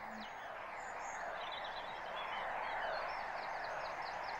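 A bird chirping over a steady outdoor hiss, in a run of quick falling chirps about three a second.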